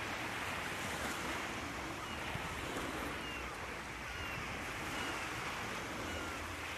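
Steady wash of ocean surf with wind noise, and a few faint, short, high chirps now and then.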